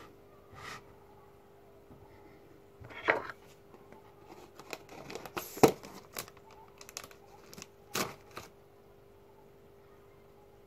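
Plastic bag crinkling and rustling as it is handled, in several short bursts with the loudest about halfway through, over a faint steady hum.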